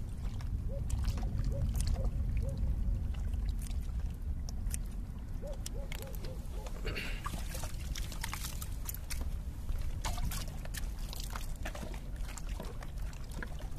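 Steady wind rumble on the microphone and water lapping against seawall rocks, with scattered sharp clicks and snips of scissors cutting peeled shrimp into bait pieces.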